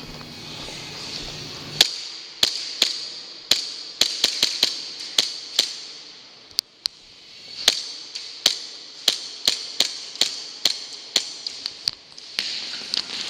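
Airsoft rifle firing single shots over and over, sharp cracks at an uneven pace starting about two seconds in, some in quick runs of several a second, over a steady hiss.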